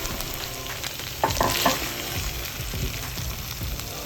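Skillet of smoked sausage, peppers, rice and chicken broth sizzling steadily on the stove, with a few sharp clinks about a second and a half in.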